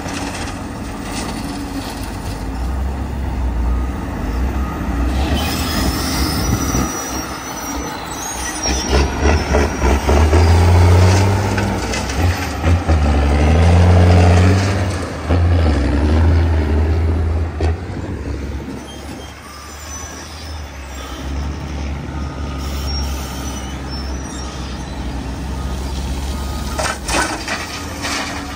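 Heavy diesel engine running, revving up and getting louder under load for several seconds around the middle, then settling back to a steady rumble.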